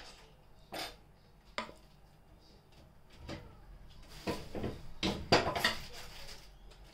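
Wooden spoon tapping and scraping against a plastic portion-control plate as corn is spooned in. A few single taps come first, then a busier run of knocks and scrapes in the second half.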